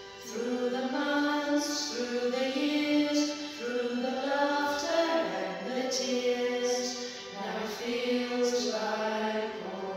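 A song: singing voices carrying a melody over a steady instrumental accompaniment. The voices come in just after the start.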